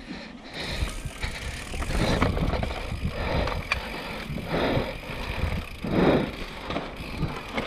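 Giant Reign mountain bike descending a dirt singletrack: tyres rolling over the dirt, with the bike rattling and clicking over bumps and wind buffeting the handlebar camera's microphone.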